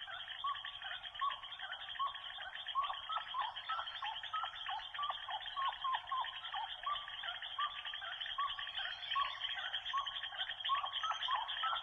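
An animal's short, high chirping calls repeated about two times a second over a steady hiss, with a thin, narrow-band sound.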